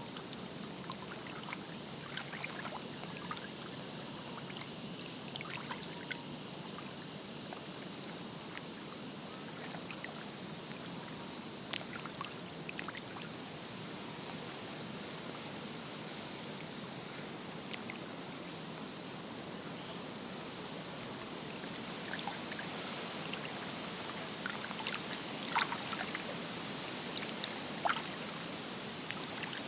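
Lake water lapping and trickling at the shore: a steady wash with scattered small splashes and drips, which grow busier and a little louder in the last few seconds.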